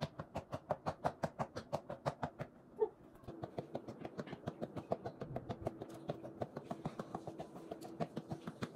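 Rapid, even taps of gloved fists hitting a boxing reflex ball on an elastic headband string, about five hits a second, sped up to double speed. The rhythm breaks briefly about three seconds in, then picks up again.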